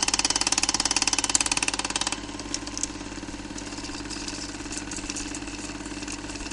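An engine running with rapid, even pulsing, loud at first and dropping to a quieter steady run about two seconds in.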